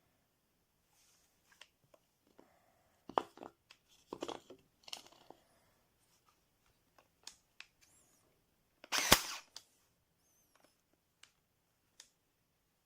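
Clicks and knocks of a cordless staple gun/brad nailer and its case being handled, with one sharp, loud snap about nine seconds in.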